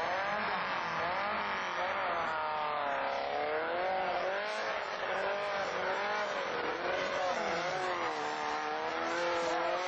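Open-wheel racing buggy's engine revving hard on a timed run, its pitch surging up and down again and again as the throttle is worked.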